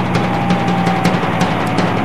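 Background music with a drum-kit beat: evenly spaced sharp strikes over a dense low bass, with one held tone slowly falling in pitch.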